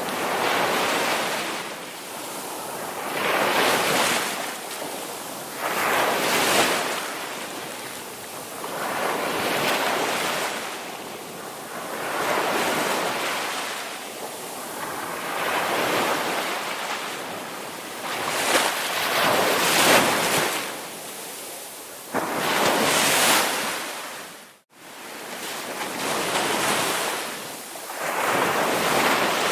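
Ocean surf breaking on a beach, the wash of waves swelling and falling every two to three seconds. The sound cuts out for an instant about 25 seconds in.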